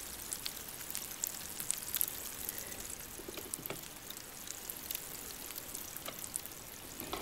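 Effervescent reactor pod fizzing as it dissolves in a beaker of water: a faint, steady crackle of many tiny bubbles popping as the foam rises.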